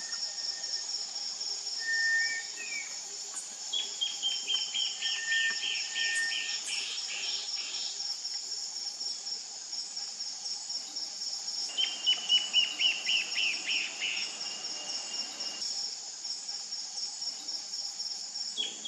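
Amazonian forest chorus: a steady, high insect drone throughout. Over it, Peruvian Warbling Antbirds sing twice, each song a fast run of notes falling slightly in pitch, starting about 4 s in and again about 12 s in. Early on, a Cinereous Tinamou gives a few faint level whistles in the distance.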